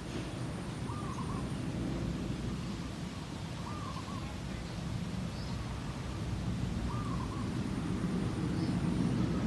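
A bird repeats a short two-part hooting call about every three seconds, over a steady low outdoor rumble.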